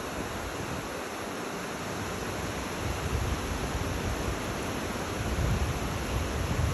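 Steady rain falling, an even hiss, with a low rumble underneath that swells briefly around three and five and a half seconds in.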